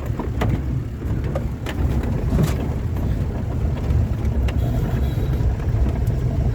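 A vehicle driving: a steady low rumble, with a few sharp knocks and rattles.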